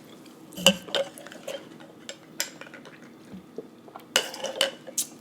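Scattered light clicks and clinks of tableware and food containers being handled on a table, in small clusters about a second in and again near four seconds.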